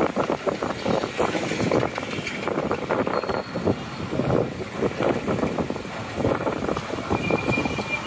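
City road traffic and the car's own running noise, heard from inside a moving car: a steady, uneven rumble of engines and tyres.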